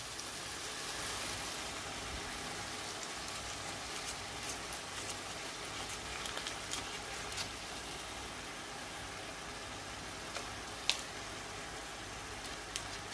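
Pot of meat and Irish potatoes cooking in water on the stove, giving a steady hiss, with a few faint clicks and a sharper one about eleven seconds in.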